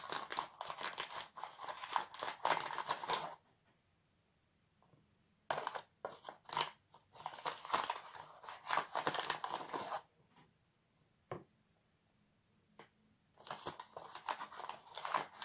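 A spoon scooping cornstarch inside its packet: scraping and crinkling of the box and its paper in three bouts, one for each spoonful.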